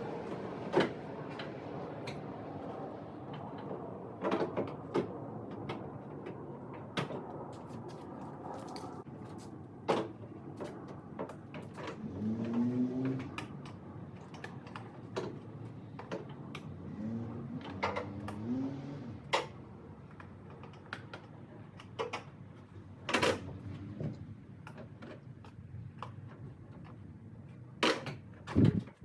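Scattered clicks and knocks of hand tools and a plastic taillight housing being worked on, as bolts come out of a 2002 Ram 1500's taillight. Brief squeaky, wavering sounds come about twelve seconds in and again around seventeen to nineteen seconds.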